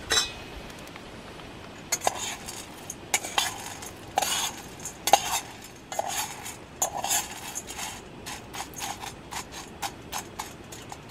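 Roasting coffee beans rattling and clicking against a steel pan as a hand stirs and spreads them, in irregular clusters of sharp clinks from about two seconds in. A steady hiss runs underneath.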